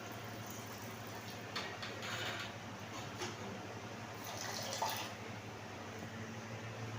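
Steady rush of water with a low hum under it, and two louder splashing spells, about a second and a half in and again near the fifth second.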